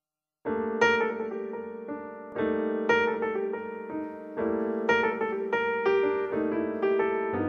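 Background piano music, starting about half a second in, with a new chord struck roughly every two seconds.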